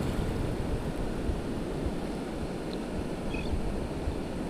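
Wind buffeting the microphone, a steady low rumbling noise, over the wash of surf breaking on the beach.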